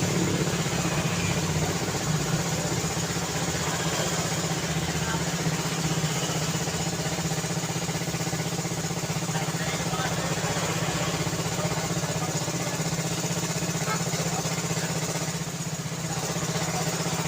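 A motor vehicle's engine idling steadily, an even low hum with a fast regular pulse.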